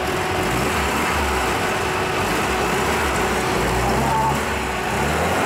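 Engine of an off-road UAZ 4x4 running close by as the vehicle works through deep mud, a steady low drone mixed with noise.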